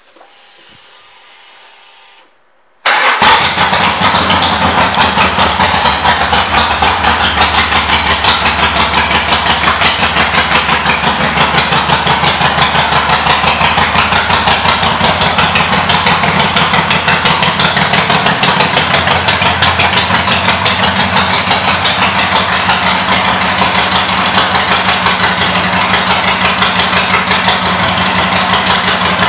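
Harley-Davidson Sportster 1200 Custom's air-cooled V-twin, with aftermarket exhaust pipes, catches suddenly about three seconds in and then idles loudly and steadily, its exhaust pulses coming in a quick even beat.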